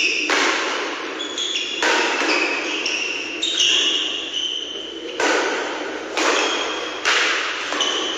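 Doubles badminton rally: racket strings striking the shuttlecock about every second, each hit ringing briefly in the hall, with sneakers squeaking on the court floor between shots.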